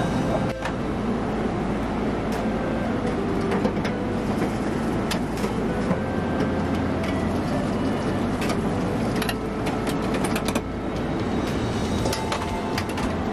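Steady roar of a commercial gas wok stove, with a metal ladle clinking now and then against the wok and the steel bowls.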